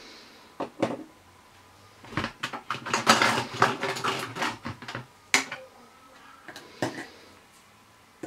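Small plastic toy tea set pieces clicking and clattering together as they are dropped into a clear plastic teapot-shaped holder. A few single clicks at first, a busy run of rattling from about two to five seconds in, then a few more single clicks.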